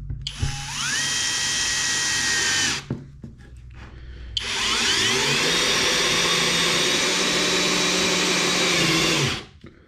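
HOTO 12V brushless cordless drill/driver, set to speed 25, driving a large wood screw into a wooden board in two runs: a short one of about two and a half seconds, then a longer one of about five seconds. Each run is a motor whine that rises in pitch, holds steady, then stops, and the screw goes in without the driver stalling.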